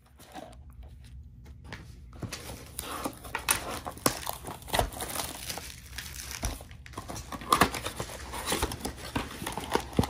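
Cardboard trading-card box being handled and torn open: scattered crinkling, tearing and tapping, starting about two seconds in.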